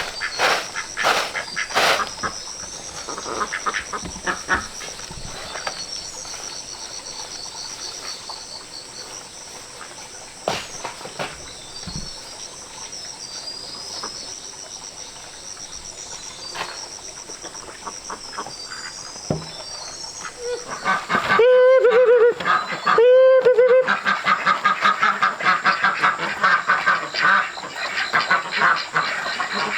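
Small birds chirping, then two loud honking calls about two-thirds of the way in. A rapid run of repeated calls from farm fowl follows to the end.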